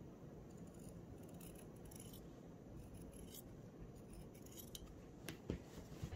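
Fabric shears snipping through woven cloth in several faint runs of cuts, followed by two sharp clicks near the end.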